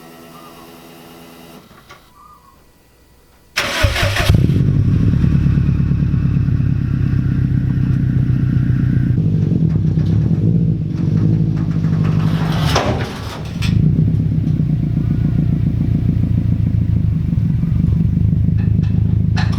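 Subaru WRX turbocharged flat-four started about three and a half seconds in, catching at once and then running loud and steady at idle, with a short dip in the sound near the middle.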